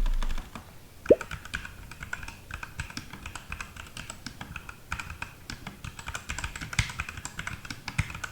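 Typing on a Redragon Fizz Pro K616 60% mechanical keyboard with Redragon red linear switches on a plastic plate: a quick, uneven run of key clicks and clacks, with one louder knock about a second in. The keys make no rattle.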